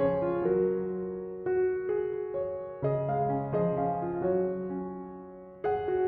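Background music: soft piano playing sustained chords.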